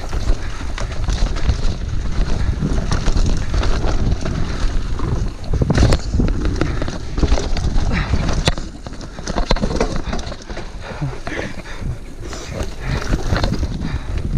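Mountain bike descending a dirt forest trail at speed: tyres running over loose dirt and roots, with a steady stream of sharp clattering knocks from the chain and frame over the bumps and a heavy low rumble.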